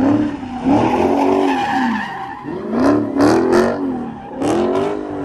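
Dodge Charger doing donuts: the engine revs up and down in repeated swells about every second and a half, with the tires squealing and skidding on asphalt.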